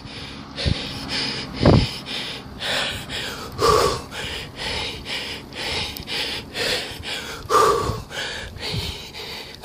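A cyclist's hard, rhythmic breathing while pedalling, a puff about every half second, with a couple of heavier exhalations.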